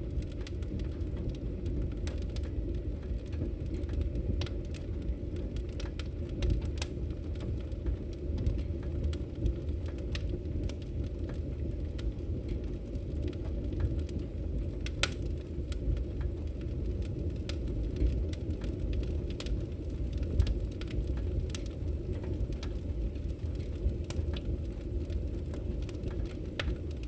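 Fire burning: a steady low roar with scattered sharp crackles and pops.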